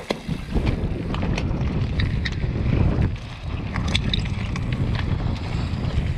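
Mountain bike riding fast down a loose rocky trail: wind rushing over the microphone and tyres running over stones, with frequent sharp clicks and rattles from stones and the bike.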